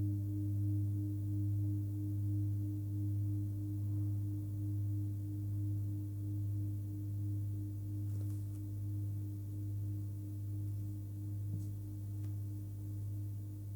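A 27 cm hand-hammered Full Moon Tibetan singing bowl ringing with a deep fundamental of about 101 Hz, between G and G#, and a fainter higher overtone. The tone wobbles in a slow, even beat and fades very gradually.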